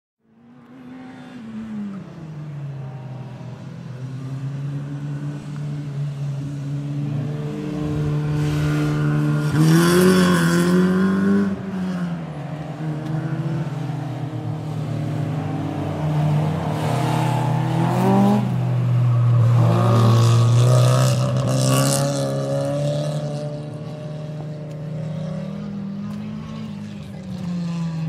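Racing car engines running hard at a track, their pitch rising and falling as they rev, shift and sweep past. The loudest passes come about ten seconds in and again around twenty seconds in.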